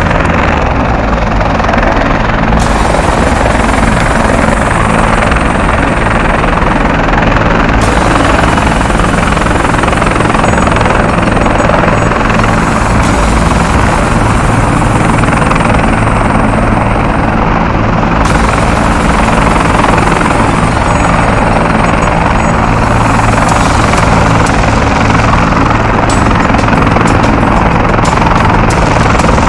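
Military helicopter running on the ground with its main rotor turning: a loud, steady rotor and turbine noise that holds at the same level throughout.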